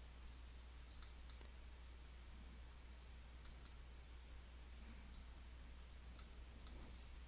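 Near silence with faint computer mouse clicks, mostly in close pairs, about a second in, near the middle and again near the end, over a low steady hum.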